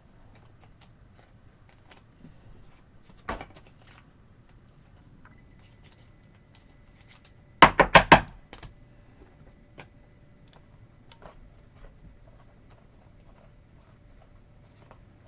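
Trading cards being handled and flipped through: faint scattered clicks and taps of card stock. There is a louder knock about three seconds in and a quick run of four loud knocks about eight seconds in.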